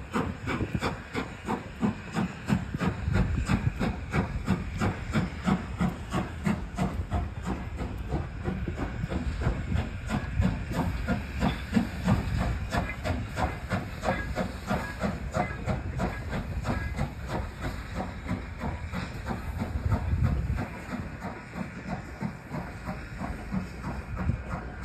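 Strasburg Rail Road No. 90, a 2-10-0 steam locomotive, working past with a fast, even beat of exhaust chuffs over a steady hiss of steam.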